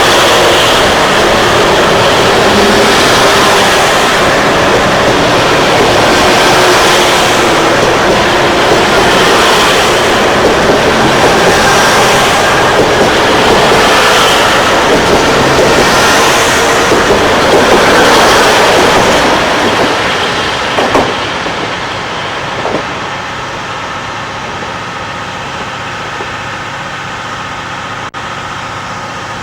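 KiHa 181 series diesel express railcars running loudly past under power, the noise swelling about every two seconds as each car goes by. About twenty seconds in it falls away, leaving a steady diesel engine idle.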